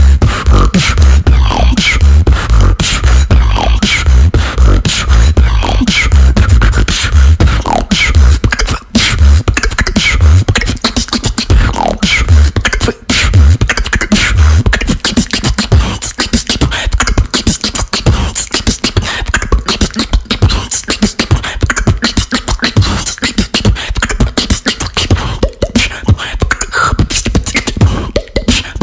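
Vocal beatboxing: a fast, continuous run of mouth-made kick, snare and hi-hat sounds with deep bass hits, and short sliding vocal tones in between.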